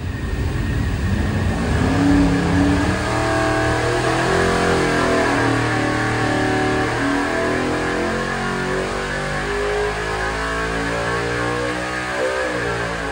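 427 cubic-inch small block Ford V8, carbureted with open headers, making a wide-open-throttle dyno pull. Its pitch climbs steadily as the revs rise to about 7300 rpm, then drops off near the end as the throttle closes.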